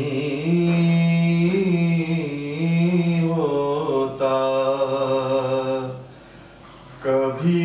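A man's solo voice chanting Urdu devotional verse, holding long drawn-out notes. There is a breath pause about six seconds in, and a new line starts near the end.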